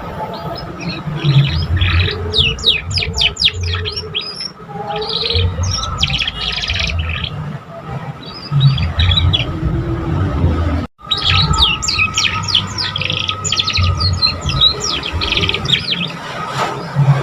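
Young canary singing a practice song: runs of quick downward-sweeping notes and trills. A short break about eleven seconds in, then the song goes on. A constant low rumble lies underneath.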